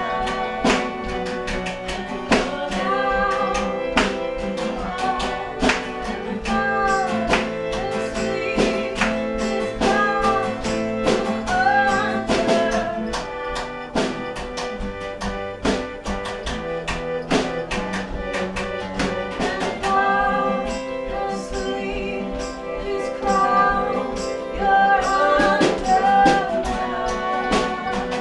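Live acoustic band playing a song: acoustic guitars strummed over a steady drum beat, with a woman singing lead.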